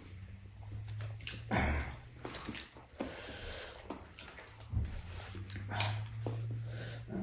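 Eating sounds close to the microphone: irregular chewing, smacking and mouth clicks, over a faint steady low hum.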